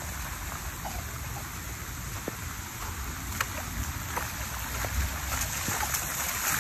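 Steady rain hiss on grass and pavement over a low, uneven rumble. Near the end, bare feet splash through shallow puddles on the path.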